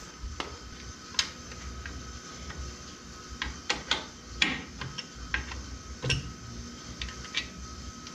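Hand wrench loosening the 1/2-inch bolts on a Bell & Gossett circulating pump's motor mount: irregular metallic clicks and clinks of the tool on the bolts, a few sharper ones near the middle.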